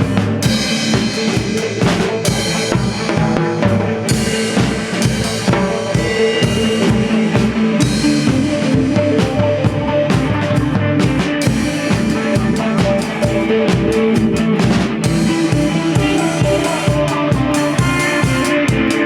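Band music without singing: a drum kit with bass drum and snare keeps a steady beat under sustained pitched instruments.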